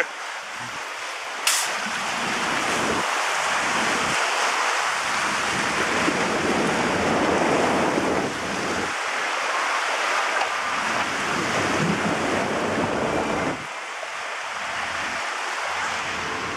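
Churning water of a river rapids ride channel heard from aboard the raft, with wind on the microphone. The water is loudest from about six to thirteen seconds in, and there is one sharp click about a second and a half in.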